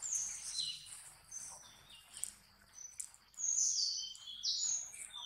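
Birds calling in the forest: a quick series of high, thin chirps, each falling in pitch, overlapping and repeated throughout.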